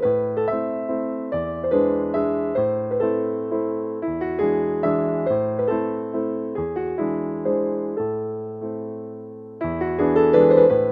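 Background piano music: a tune of struck chords and single notes, each fading after it is played.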